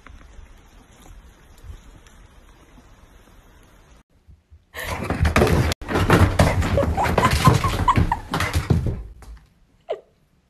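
Faint background noise, then from about five seconds in a dense run of loud thumps and knocks for about four seconds: a pit bull throwing a rolled-up rug about on a hardwood floor.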